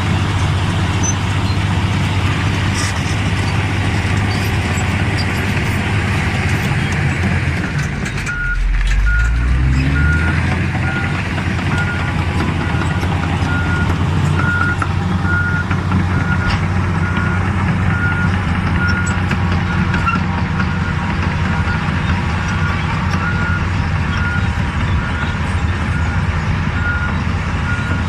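Crawler bulldozer's diesel engine running under load; about eight seconds in the engine note dips and climbs again, and a reverse alarm starts beeping in a steady, evenly spaced series as the machine backs up.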